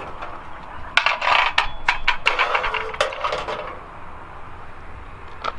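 Deep fryer being worked: a run of sharp metallic clinks and crackles, starting about a second in and thinning out after the middle.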